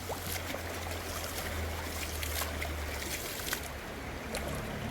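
Water splashing and sloshing around a bathing elephant, with scattered sharp splashes and a steady low hum underneath.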